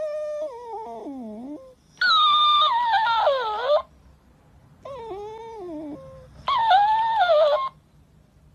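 A Shiba Inu gives long, wavering, falling whines, and each one is echoed straight back by a talking plush toy dog. The copy is higher-pitched, louder and rougher but has the same shape. This happens twice: dog, toy, dog, toy.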